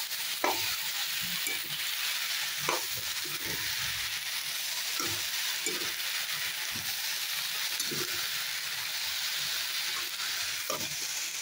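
Chopped tomatoes, peas and onions sizzling steadily in hot oil in a steel pan. A metal spatula stirs and scrapes against the pan, with a short knock every second or two.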